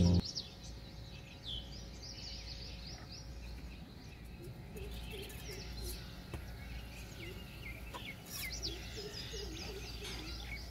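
Background music stops right at the start, leaving birds chirping in short high calls again and again over a faint low hum.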